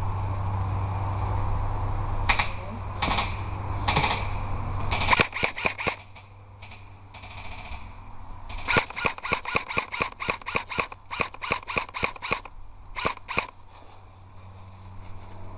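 Airsoft guns firing BBs: a few single shots, then from about five seconds in several bursts of rapid shots in quick strings.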